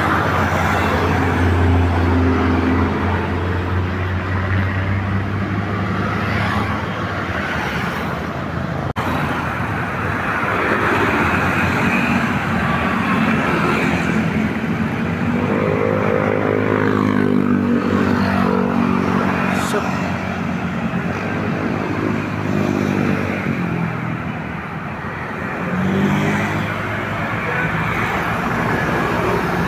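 Roadside traffic with large vehicles such as buses passing, their engines running. A few pitched tones rise and fall as vehicles go by: near the start, around the middle and near the end.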